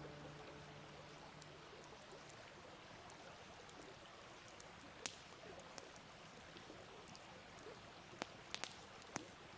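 Faint fireplace crackle: a low, steady hiss with a handful of sharp pops, one about five seconds in and a cluster near the end, as the tail of a piano note dies away at the start.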